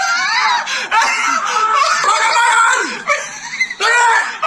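High-pitched screaming and snickering laughter.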